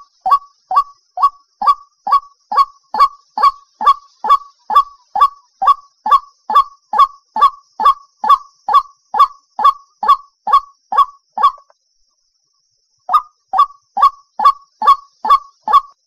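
White-breasted waterhen giving its repeated 'ruak' call, a steady string of short, slightly falling notes at about two and a half a second. It breaks off for about a second near twelve seconds in, then starts again.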